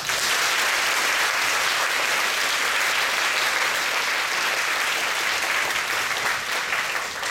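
An audience applauding: many hands clapping at once. It starts suddenly, holds steady, and thins out near the end.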